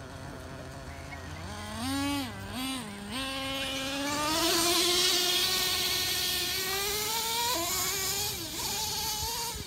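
Radio-controlled monster truck's motor revving with the throttle: the pitch dips twice about two seconds in, then climbs steadily for several seconds as the truck speeds up, loudest in the middle, before a brief drop near the end.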